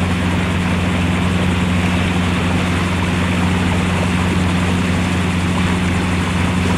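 Sailboat's engine running steadily as the boat motors along, a constant low drone.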